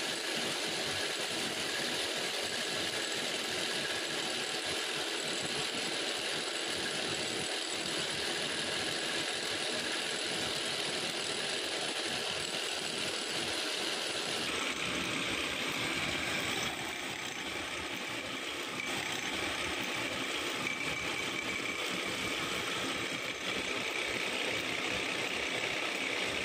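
Wood lathe running steadily, spinning a turned wooden workpiece while a cloth is held against it to polish it. The steady motor sound shifts slightly in tone about halfway through.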